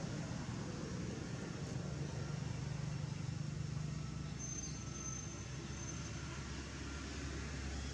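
Steady low background rumble of outdoor ambient noise, with a faint thin high tone for a second or so about halfway through.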